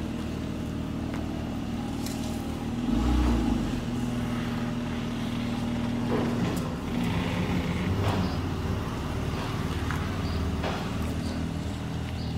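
Mercedes-AMG GLC 43 coupé's twin-turbo V6 running at low speed while the car is manoeuvred back and forth through a gateway. The engine note rises briefly about three seconds in and again midway as the driver gives it a little throttle.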